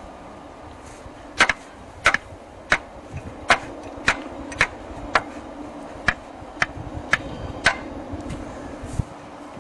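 About a dozen sharp knocks, a little under two a second, over the steady low hum of the well-drilling machine's motor; the knocking stops a couple of seconds before the end.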